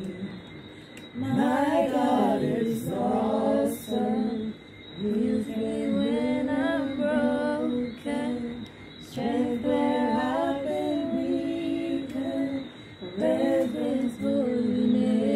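A woman singing unaccompanied in slow, held phrases, with short breaks between them.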